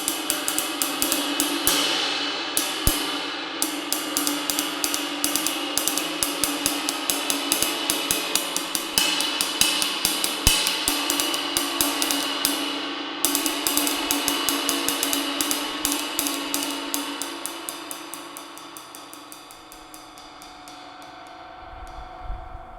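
A 24-inch ride cymbal with its crack damage repaired, struck rapidly with a stick in a steady stream of pings over a bright, washy ring. About two-thirds of the way through the strikes thin out and the cymbal rings down.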